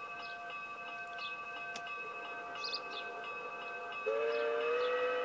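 A steady chord of several high tones. About four seconds in, a louder, lower whistle blast from a model steam locomotive's sound unit rises slightly, then holds level.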